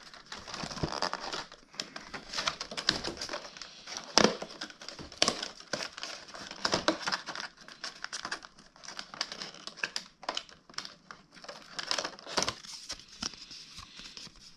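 Crinkling and rustling of cardboard and plastic packaging handled by hand, with many small sharp crackles and clicks, as a Pokémon advent calendar door is opened and its wrapped contents taken out.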